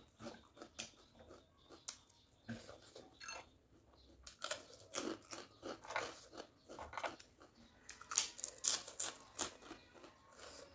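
A person chewing and biting food, with crunchy bites in irregular bursts of sharp clicks, busiest between about eight and nine and a half seconds in.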